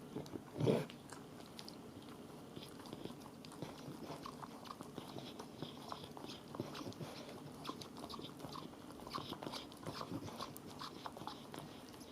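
A dog chewing and gnawing: faint, irregular small clicks and crunches, with one louder knock just under a second in.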